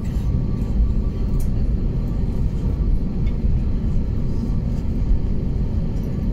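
Steady low rumble of jet airliner noise, with faint scattered clicks over it.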